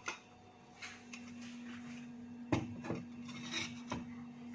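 Faint sounds of a metal spoon stirring melted sugar in a small steel pan, with a sharp knock against the pan about two and a half seconds in and lighter clinks after, over a steady low hum.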